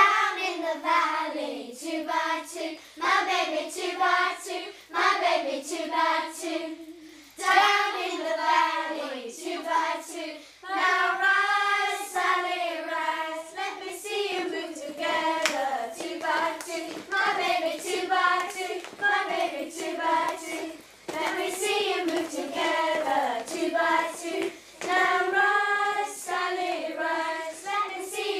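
A group of children singing a playground singing-game song, with regular hand claps throughout.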